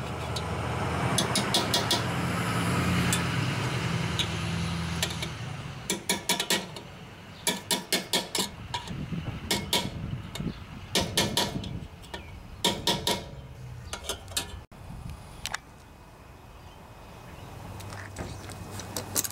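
Hammer tapping a steel punch to bend the locking tabs over the muffler mounting bolts on a Briggs & Stratton engine: quick metallic taps in short bursts of several strikes, every second or two. A low hum swells and fades in the background over the first five seconds.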